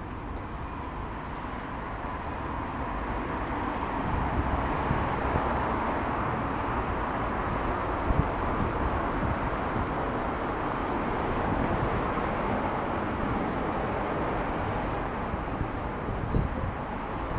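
Road traffic noise as a vehicle passes: tyre and engine noise swells over the first few seconds, holds, and eases off near the end, with a few low thumps.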